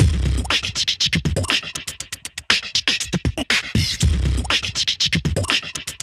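Background music: a fast beatbox-style hip hop beat of quick clicks and deep bass kicks.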